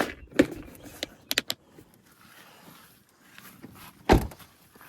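Close handling noise as fishing tackle is rigged: a few knocks and two quick clicks, then one louder thump near the end.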